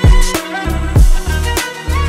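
Instrumental background music with a beat: deep kick drums that drop in pitch, sustained bass notes between them, and a melody line above.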